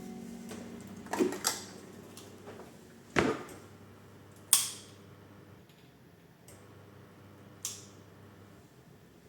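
Dishes and kitchen utensils clinking and knocking in a few separate strikes, the loudest about halfway through, over a low steady hum.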